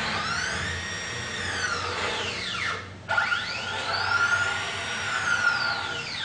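Stepper motors of a homemade CNC router whining through two rapid axis moves: each time the pitch rises as the axis accelerates, holds at top speed and falls as it slows, with a short break just before three seconds in.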